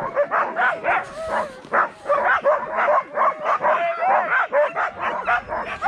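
A team of harnessed sled dogs barking and yelping over each other, several calls a second, with some high whines mixed in: the excited clamour of a dog team straining to set off.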